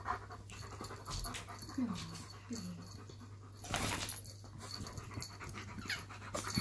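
German Shepherd panting in quick, rhythmic breaths with its mouth open, with two short low falling whines a couple of seconds in and a louder burst of noise about four seconds in.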